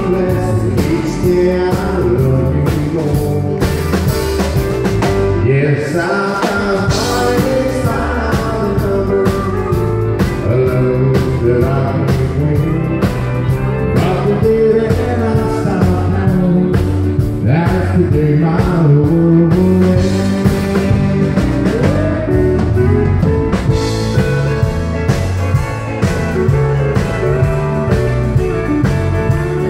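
Live country band playing through the stage sound system: electric guitar, acoustic guitar and pedal steel guitar over keyboard and drums, with a steady beat.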